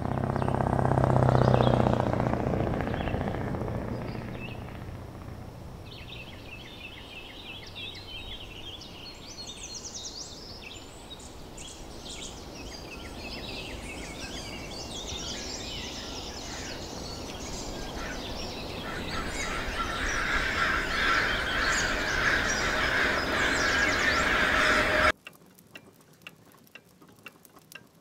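Outdoor ambience of birds chirping and calling, growing louder and denser, after a low rumble that swells and fades in the first few seconds. About 25 seconds in it cuts suddenly to a quiet room with a mantel clock ticking.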